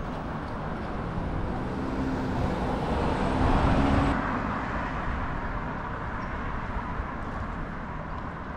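City street traffic noise with one motor vehicle passing close by, its engine hum rising slightly as it grows loudest about three to four seconds in, then falling back into the steady traffic background.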